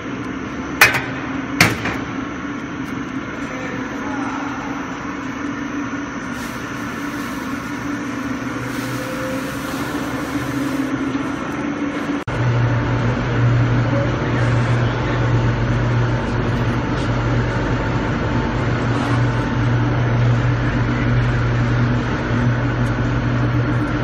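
Steady machinery hum of a rotary rice husk carbonization furnace, with a hand tool knocking twice against the steel feed hopper about a second in. About halfway through, a deeper and louder hum comes in suddenly and holds.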